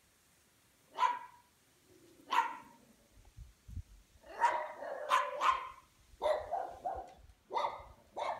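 Puppies barking in short, sharp yaps: two single barks about a second and a half apart, then from about four seconds in a quicker run of barks, two or three a second.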